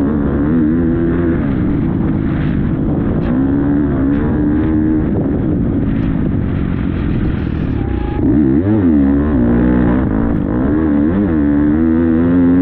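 Motocross bike engine heard onboard, revving up and down as the rider works the throttle through the gears. The revs rise and fall sharply several times in the second half.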